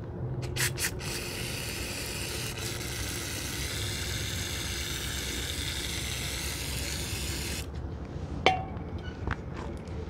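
Aerosol cleaner sprayed through a red extension straw onto a motorcycle's front brake caliper to clear debris from around the pistons: a few short spurts, then one long steady hiss of about six seconds that cuts off suddenly. Two light clicks follow near the end.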